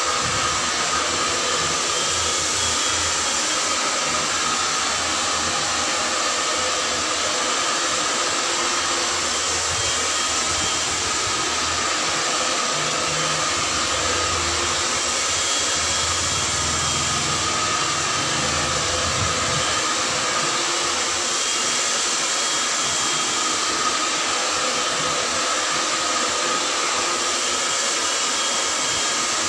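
Handheld hair dryer running steadily as hair is blow-dried: an even rush of air with a steady whine in it.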